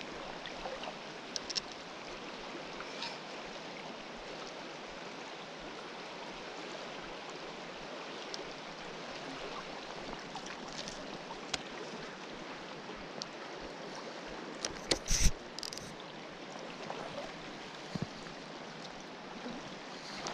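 River water flowing steadily, the river running high. A few sharp knocks cut through it, loudest in a quick cluster about fifteen seconds in.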